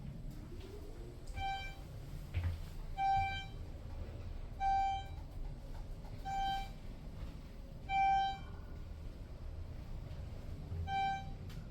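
Elevator car's floor-passing chime as the car travels down: six short beeps at one pitch, about one every 1.6 s. The last beep comes after a longer gap, with a low steady hum of the car running underneath.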